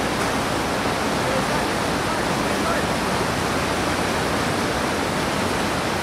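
Steady rush of whitewater from the Middle Fork of the Stanislaus River running fast over boulders, an even, unbroken roar of water.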